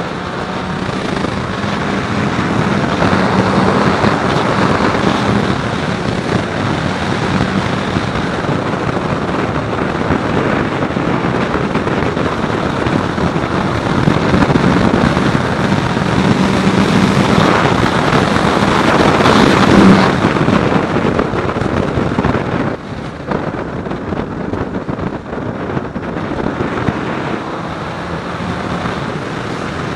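Motorcycle riding at speed, heard from a helmet or bike-mounted camera: loud wind rush over the microphone with a steady engine hum underneath. The wind noise eases somewhat about three quarters of the way through.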